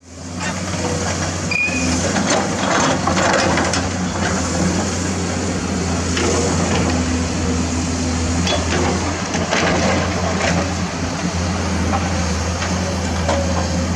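Komatsu PC200 hydraulic excavator's diesel engine running steadily under load, with scattered knocks and clatter of the bucket working limestone rock.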